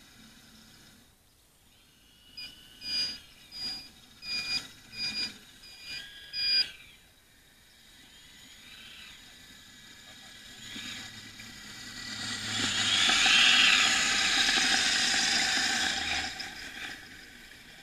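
Radio-controlled scale construction models at work: a run of short, high electric whines in the first half, then the model Bell B35D articulated dump truck passes close by with a louder whirring rush that builds and fades.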